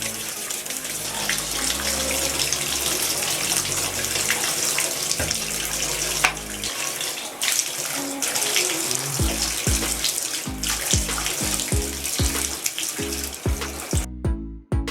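Bath water running steadily, stopping suddenly near the end, over background music whose pulsing bass line comes in about nine seconds in.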